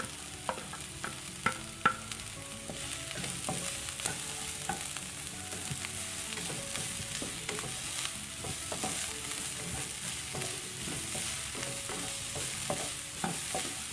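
Chopped onion and garlic sizzling in oil in a non-stick wok while a spatula stirs and scrapes them, sautéing until the onion softens. A few sharp clicks of the spatula against the pan, the loudest about two seconds in.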